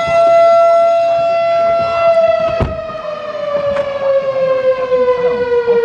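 Fire station's mechanical alert siren sounding for a call: a steady high tone that begins to wind down about two seconds in, its pitch slowly falling. A short thump about halfway through.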